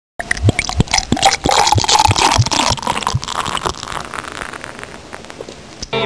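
Beer pouring from a tap into a glass, a splashing fill with a run of irregular low plops over the first three seconds, then dying away.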